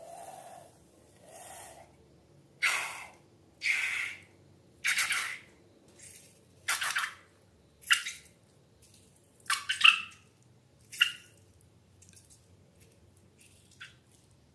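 Slime squelching: a run of short wet squishes about a second apart, thinning out into faint clicks near the end.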